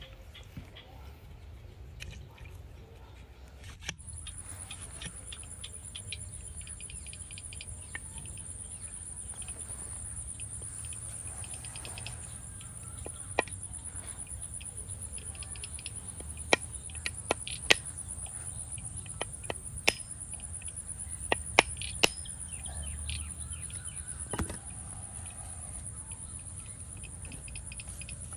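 An insect's steady high-pitched trill starts about four seconds in and keeps going. A series of sharp, separate knocks, the loudest sounds, fall between about the middle and three quarters of the way through: a small hatchet striking a husked coconut held in the hand.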